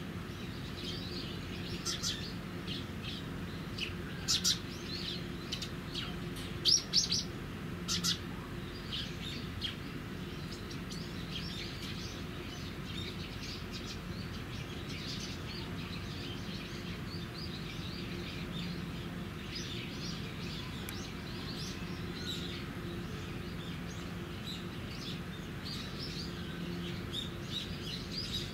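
Small birds chirping in short, repeated calls, with a few louder, sharper chirps in the first eight seconds, over a steady low hum.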